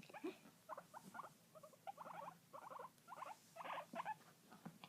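Guinea pigs making faint, short bursts of rapid squeaks, about eight little clusters in a row.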